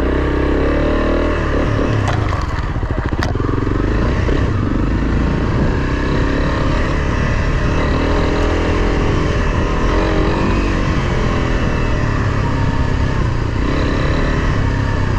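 Honda CRF300 Rally's single-cylinder four-stroke engine running under way on a dirt track, its note rising and falling with the throttle as the bike picks up speed. Two sharp knocks sound about two and three seconds in.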